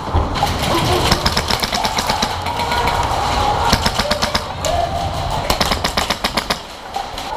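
Airsoft guns firing rapid full-auto strings, several bursts of fast snapping shots with short gaps between them.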